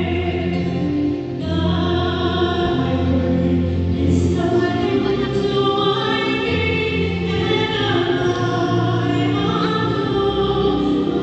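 Mixed church choir of men's and women's voices singing in harmony, holding long chords that change every second or two, with a brief breath about a second in.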